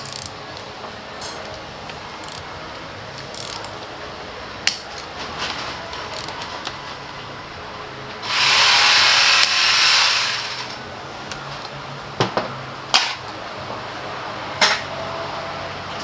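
A burst of compressed air from a workshop air line or air tool, about two and a half seconds long, starting a little past the middle. Around it are a few sharp metallic clicks and knocks from tools being handled.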